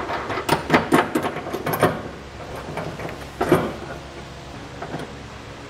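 Small metal clicks and clinks of a nut and spacer block being handled and threaded onto a bolt by hand. There is a quick cluster in the first two seconds, one more a little past the middle, and a few faint ticks near the end.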